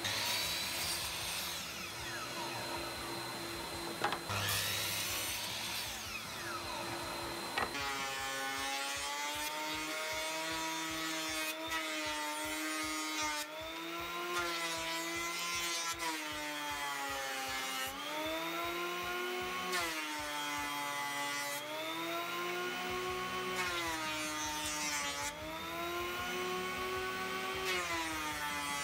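A sliding miter saw runs and makes two cuts through a pine board in the first several seconds. About eight seconds in it gives way to a combination jointer-planer running, its motor pitch sagging and recovering repeatedly as boards are fed through.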